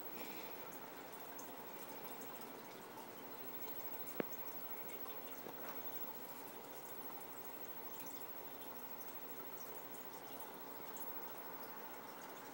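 Aquarium water trickling and dripping steadily, with faint tiny ticks and one sharp click about four seconds in.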